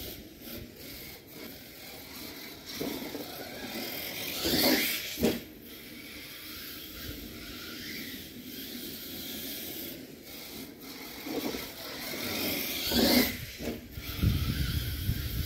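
Radio-controlled monster truck motor revving up twice, each a rising whine, about five seconds and thirteen seconds in, with a sharp knock just after the first rev.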